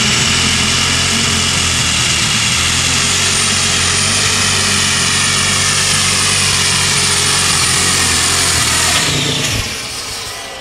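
A Case super stock pulling tractor's engine runs flat out under load down the track, with a high whine that climbs in the first second and then holds steady. About nine seconds in, the engine sound drops off sharply.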